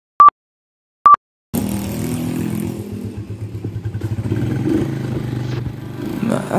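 Two short, loud countdown-leader beeps about a second apart, then from about one and a half seconds in a motorcycle engine running as the bike rides off, its level rising and falling.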